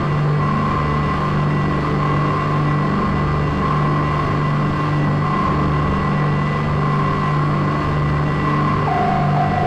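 Ambient drone music: a held low hum under sustained higher notes that shift in steps, the upper note dropping lower near the end.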